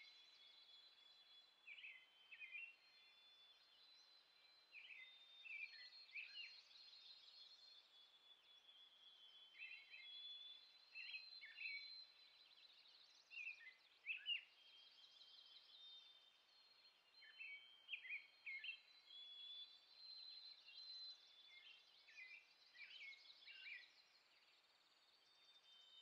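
Faint birdsong: short chirps in small groups and quick high trills recurring every second or two over a low hiss.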